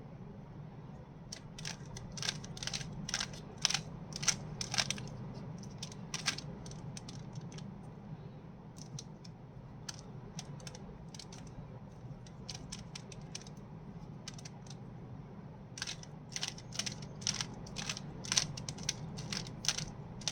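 Rubik's cube being twisted by hand, its plastic layers clicking as they turn. It comes in two quick runs of turns, one near the start and one near the end, with scattered clicks between, over a low steady hum.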